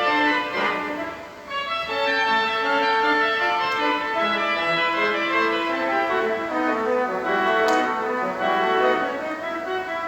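Pipe organ playing in concert: sustained chords with moving lines over them, with a brief break in the sound about a second in before the playing resumes.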